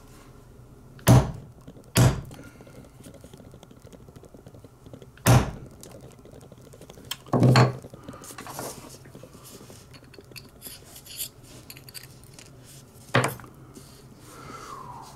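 Five sharp knocks at uneven gaps, the fourth slightly longer, from metal hand tools striking a hard workbench, as when a hollow punch is hammered through rubber to cut small seal discs.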